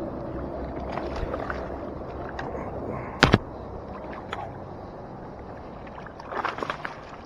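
Gear knocking and clicking aboard a fishing kayak over a steady background of water: one sharp double knock about three seconds in, then lighter clicks and a cluster of taps near the end.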